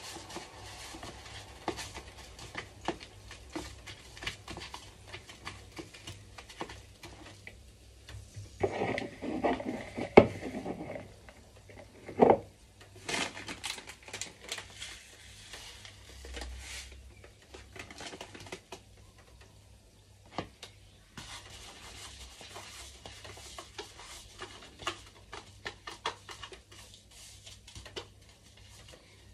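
Hot oil crackling and ticking irregularly as baduya (banana fritters) fry in a pan, with pan and utensil clatter; a louder spell of clatter around nine to eleven seconds in includes two sharp knocks.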